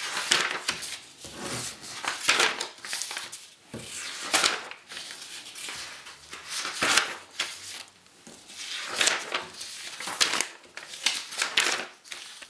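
Sheets of paper being handled and turned over, rustling in irregular swishes every second or two.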